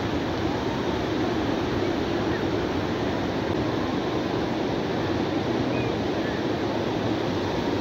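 Steady beach ambience: a continuous wash of surf mixed with the indistinct chatter of a crowd of beachgoers, with no distinct event standing out.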